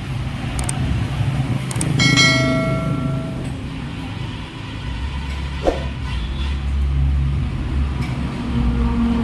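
Steady low machine hum with a struck piece of metal ringing out about two seconds in, plus a few light clicks and knocks.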